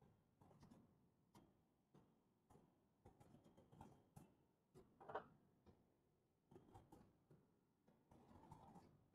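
Faint computer keyboard typing: irregular clusters of short key clicks against near silence.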